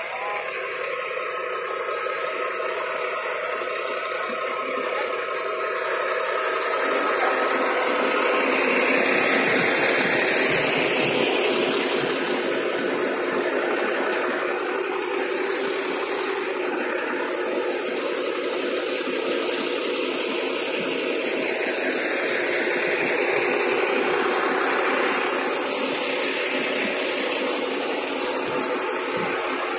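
Diesel engines of heavy earthmoving machinery, an excavator and a bulldozer, running steadily. The sound swells slightly twice.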